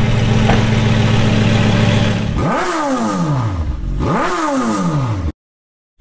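Mid-engined supercar idling steadily and loud through a makeshift straight-pipe exhaust. Then come two quick revs that rise and fall, about a second and a half apart, and the sound cuts off suddenly near the end.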